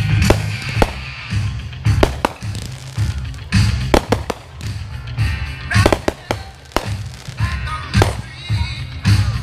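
Fireworks display: aerial shells bursting in repeated sharp bangs at irregular intervals, over loud music played with the show.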